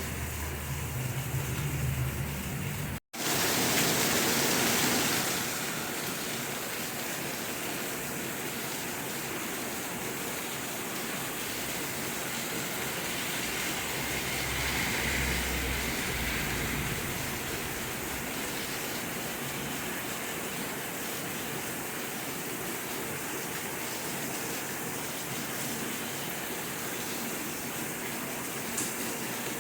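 Steady rain, an even hiss. About three seconds in it cuts out for an instant, then comes back slightly louder for a couple of seconds.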